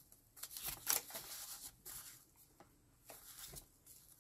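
Pages of a handmade journal of dyed paper rustling and crackling as they are turned by hand, in a few short rustles with the loudest about a second in.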